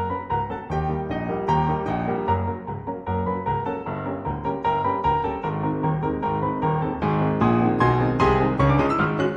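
Background piano music with a steady beat.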